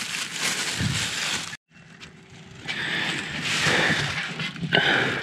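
Thin plastic carrier bag rustling as trash is handled and dropped into it. The sound cuts out abruptly about one and a half seconds in, then the rustling picks up again.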